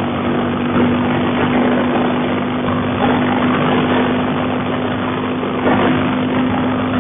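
Kawasaki Vulcan 900's V-twin engine running steadily at highway cruising speed, a constant hum under heavy wind and road rush. It is picked up through a Bluetooth helmet microphone, which gives it a thin, telephone-like sound.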